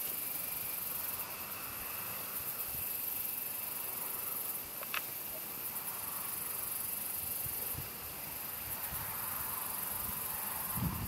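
Insects trilling steadily at a high pitch. A single short sharp chirp comes about five seconds in, and low thumps begin just before the end.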